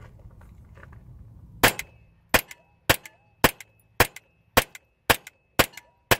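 Intratec Tec-22 .22 LR semi-automatic pistol firing nine shots in a steady string, about two a second, beginning a little over a second and a half in.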